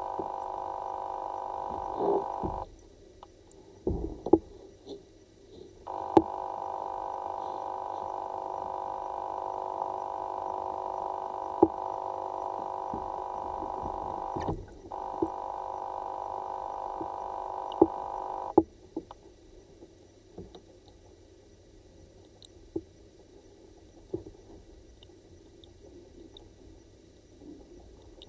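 A steady droning hum made of several pitches that stops and starts three times, with scattered sharp knocks and clicks. It is picked up by a microphone under water.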